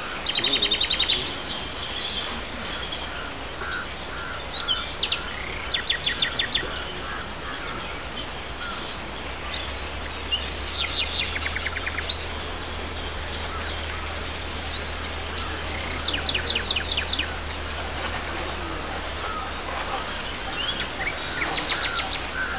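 Birds singing: short, fast, high trills repeating roughly every five seconds, with scattered chirps between them.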